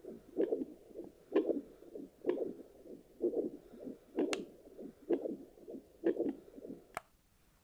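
Heartbeat pulses through a handheld Sonoline B fetal Doppler's speaker, about one beat a second with a click on each, stopping near the end. At this adult rate of roughly 65 a minute, on a woman who is no longer pregnant, it is her own pulse that the probe picks up, not a fetal heartbeat.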